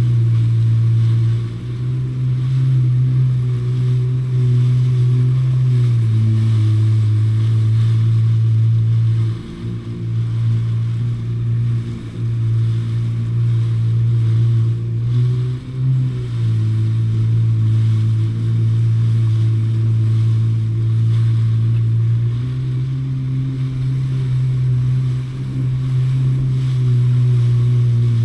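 Jet ski engine running at cruising speed, its steady drone dropping and rising in pitch a few times as the throttle eases and opens.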